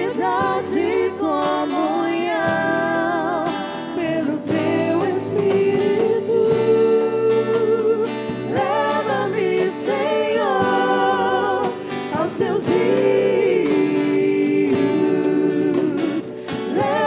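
Acoustic worship music: a voice singing a wavering, sustained melody over acoustic guitar accompaniment.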